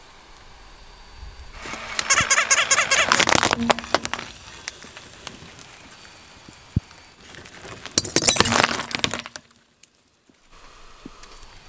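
A car tyre rolling over and crushing brittle objects on asphalt: two long bursts of rapid crackling and crunching, one about two seconds in and one about eight seconds in, with a single short knock between them.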